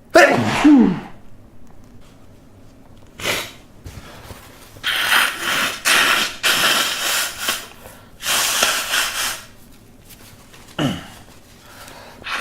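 A man sneezing: a loud voiced sneeze falling in pitch right at the start, then a stretch of noisy breathing and nasal sounds, with a second short voiced burst near the end. The sneezes are induced.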